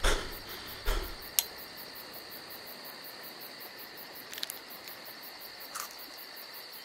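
Crickets chirring steadily in a quiet night ambience, with a few brief faint clicks and rustles.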